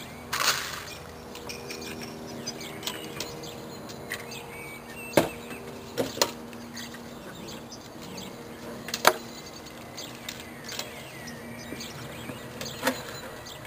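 Scattered sharp knocks and a short rustle as puppies play around wooden doghouse boards and toys, over a faint steady hum in the first half.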